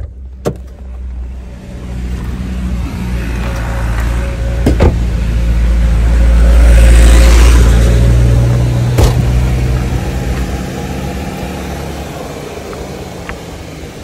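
A motor vehicle passing close by: engine hum and road noise swell to a peak about halfway through and then fade away. A few sharp knocks sound along the way.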